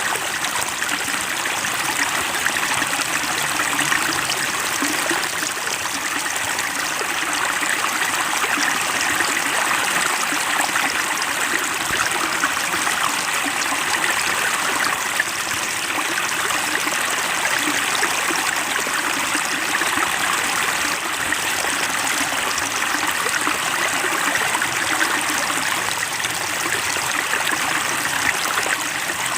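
Flowing water running and trickling steadily, like a small stream, with no breaks or changes.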